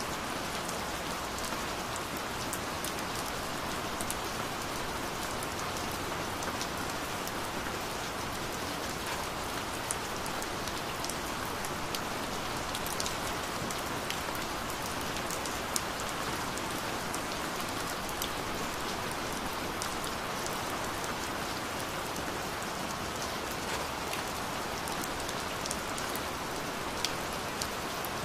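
Gentle rain falling steadily: an even hiss with scattered sharp ticks of individual drops hitting a surface.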